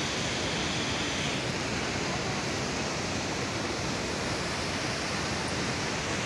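Steady rush of the Narmada river plunging over Dhuandhar Falls, an even unbroken noise of falling and churning water.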